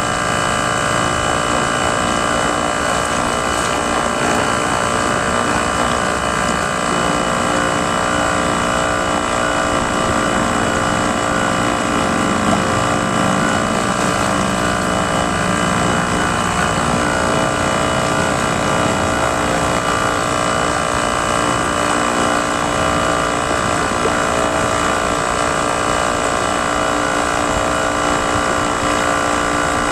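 Radio-controlled model boat motors running steadily with a continuous high whine, with a lower hum swelling for several seconds around the middle.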